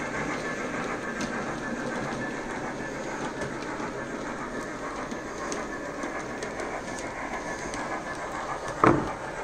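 OO gauge model train running along the layout's track: a steady rattle of small wheels on the rails with faint scattered clicks. One short, louder bump comes near the end.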